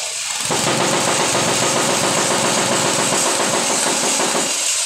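Small engine of a MIKASA construction machine, hung from scaffolding, picking up to a steady high-speed run about half a second in. It drops off again shortly before the end.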